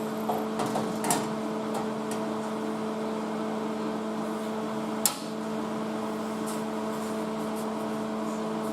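Dremel rotary tool running at a steady speed, giving a constant hum with a few light clicks and one sharp tick about five seconds in.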